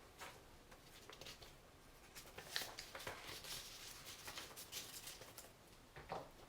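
Faint scratching of a pen writing on paper: a quick run of short strokes, densest in the middle.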